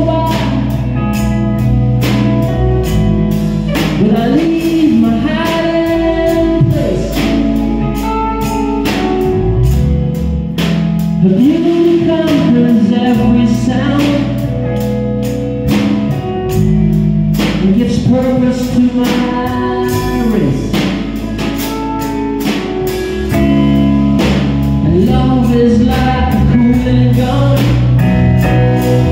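Live band playing an instrumental passage of a slow rock song: a drum kit keeping a steady beat under electric guitars, with a lead line whose notes bend and slide in pitch.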